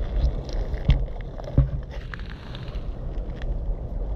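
Wind rumbling on the microphone, with a few knocks and scrapes, the two loudest about one and one and a half seconds in.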